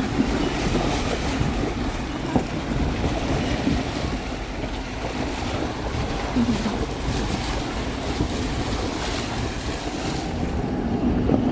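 Toyota LandCruiser 300 driving through a shallow river crossing: a steady rush and splash of water around the wheels and body, with the vehicle's low rumble underneath.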